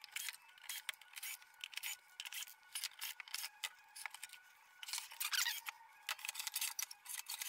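Faint, thin clicking and rattling as screws are driven out of a steel instrument case with a cordless drill/driver and the case is turned and handled; the sound has no bass.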